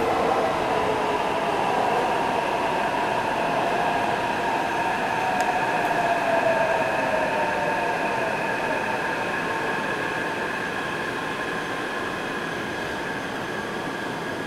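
Taipei Metro C381 train running at speed, heard from inside the car: rumbling wheel and track noise with a whine of several tones from the traction motors, some gliding slowly downward. The sound eases off gently toward the end.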